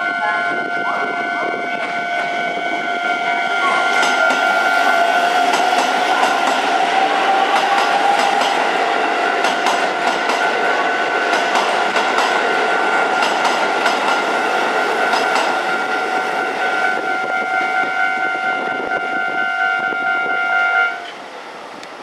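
Japanese level-crossing warning bell ringing continuously while an electric commuter train's wheels clatter over rail joints and points. The clatter is loudest from about four seconds in, and everything drops away sharply near the end.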